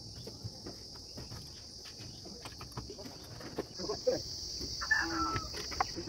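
Insects chirring steadily at a high pitch, louder from a little past halfway, with scattered light clicks and taps from steel binding wire being worked around rebar.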